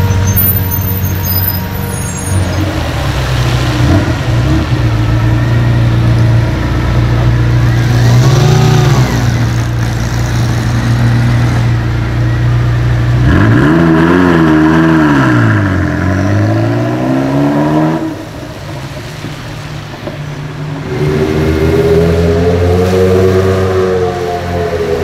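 Supercar engines running and revving: a short blip of the throttle about a third of the way in, a hard rev that rises and falls around the middle, a quieter spell, then more revving near the end.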